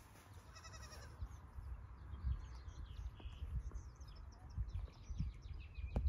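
A Nigerian Dwarf goat kid bleats faintly once, about half a second in, with faint bird chirps scattered through the rest.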